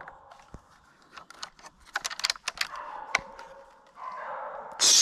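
Dog whining in drawn-out cries, with twigs and brush crackling in short snaps in between. Near the end come two loud harsh bursts, the loudest sound here.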